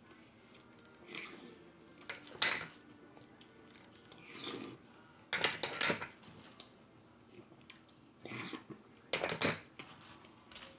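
Clam shells clinking and clattering against each other and the plate as opened cherrystone clams are picked up and set back down: several separate short, sharp clacks.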